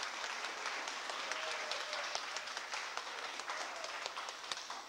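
Audience applauding, many hands clapping at once, beginning to die down near the end.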